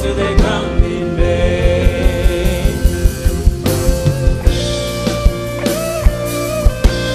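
Live gospel band playing: a drum kit keeping a steady beat under bass and guitar, with a singer's voice over the band.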